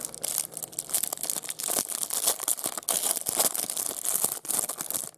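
Baseball card packaging being torn open and handled: irregular crinkling and tearing with many small crackles.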